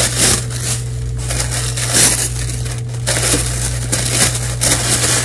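Thin white packaging wrapper crinkling and crackling as it is handled and pulled open by hand, with a couple of short pauses about three seconds in, over a steady low hum.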